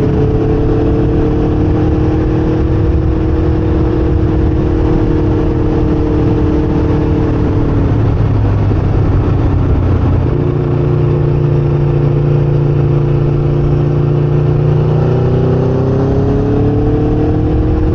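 Sport motorcycle engine running at a steady cruise, with heavy wind rush on the microphone. About 8 seconds in, the engine note drops away for a couple of seconds. It then comes back and rises toward the end as the bike accelerates.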